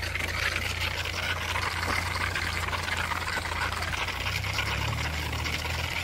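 Steady hiss of running irrigation water with a low, even mechanical hum underneath that shifts slightly about four seconds in.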